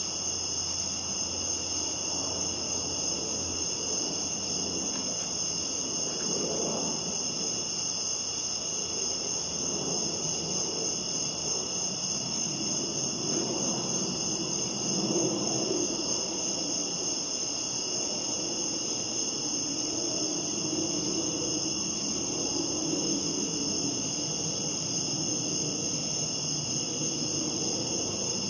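Crickets chirping in a steady night chorus, a continuous high pulsing trill. Beneath it runs a soft low rushing noise that swells and fades now and then.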